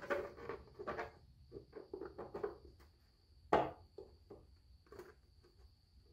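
Small clicks, taps and light rubbing of 3D-printed plastic parts being handled and pressed together, with one louder knock about three and a half seconds in.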